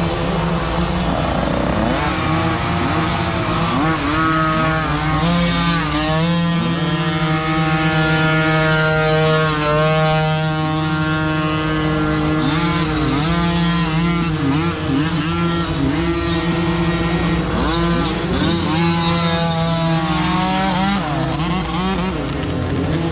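Several small youth dirt bike engines running at once: one holds a steady buzz while others rev up and down.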